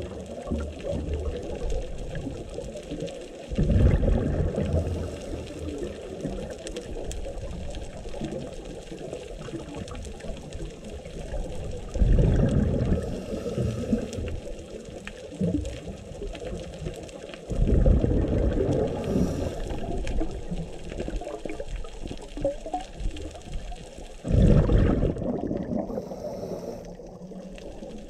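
Scuba regulator breathing recorded underwater: four loud gushes of exhaled bubbles about six seconds apart, with a muffled water rumble between them.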